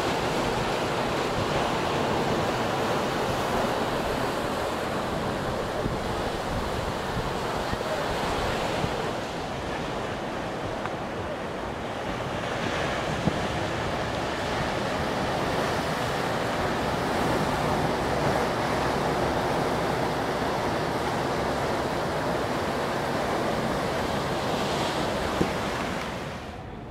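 Ocean surf washing and breaking over a rocky shoreline, a steady rush, with wind buffeting the microphone.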